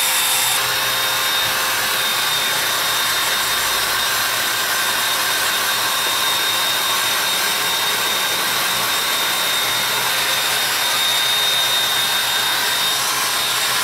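Handheld electric hair dryer running steadily with a thin high whine, blowing on a dog's damp fur to dry it.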